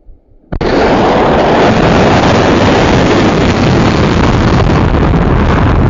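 Loud, steady rushing noise of a rocket or missile launch, starting abruptly about half a second in, with a deep rumble underneath.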